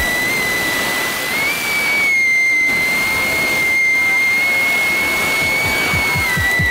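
FPV quadcopter's motors whining at a steady high pitch over a hiss; the pitch steps up slightly after about a second and a half and drops back near the end.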